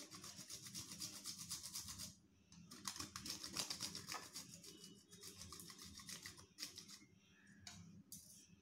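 A whole nutmeg being grated on a small metal hand grater: quick, faint rasping strokes in two runs of about two seconds each, then a few scattered strokes.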